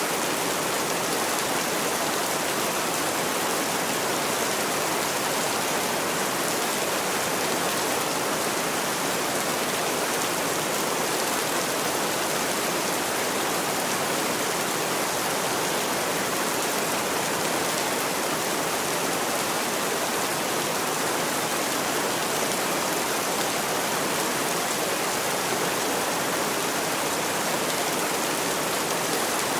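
Heavy rain falling in a steady, even hiss that does not change.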